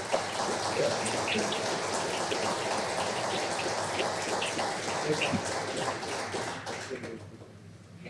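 Audience applauding at the end of a talk: a dense, steady patter of clapping that dies away near the end.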